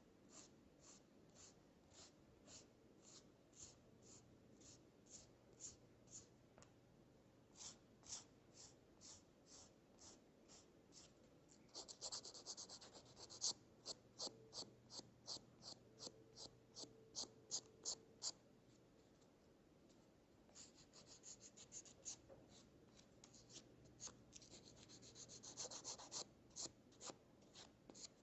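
Faint, short rasping strokes of a hand abrasive shaping the nose area of an acetate spectacle frame, about two strokes a second. The strokes grow louder about halfway through, with quicker runs of strokes later on.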